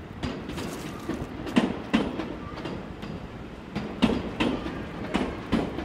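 Seibu 40000 series electric train rolling past, its wheels knocking over rail joints in quick pairs of clacks, over a steady running rumble.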